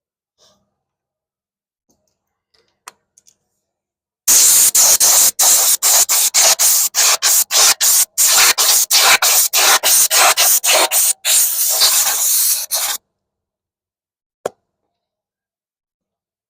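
Scuff pad scrubbing the painted surface of an alloy wheel in quick back-and-forth strokes, a loud rasping hiss about three strokes a second, to key the surface so the paint will adhere. It starts about four seconds in and stops abruptly near the end.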